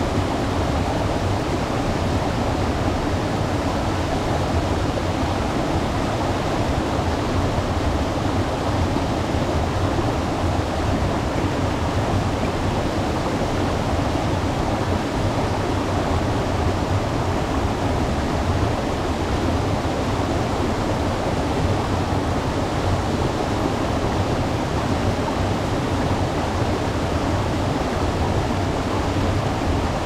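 A waterfall pouring: an even, unbroken rush of water, strongest and deepest in the low range, with no change throughout.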